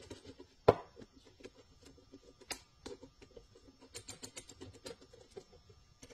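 Metal clicks and ticks of a valve spring compressor's threaded rod and adapter cup being handled while the adapter is swapped, with one sharp clack about two-thirds of a second in and a louder one near two and a half seconds.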